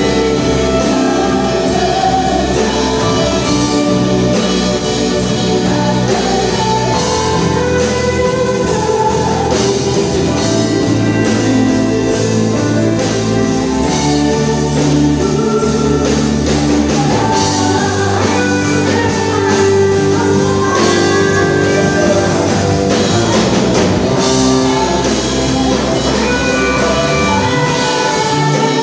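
Live worship band: female voices singing an Indonesian praise song over keyboards, drum kit and electric guitar, at a steady level.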